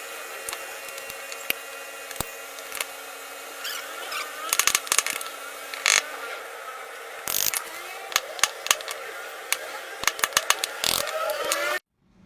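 A small power tool running with a steady whine, with many sharp metallic clicks and taps as metal parts are worked. The sound cuts off abruptly near the end.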